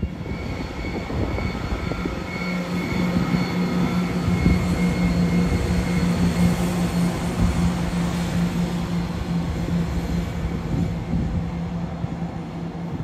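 CrossCountry Class 170 Turbostar diesel multiple unit passing, its diesel engines giving a steady hum over the rumble of wheels on rail.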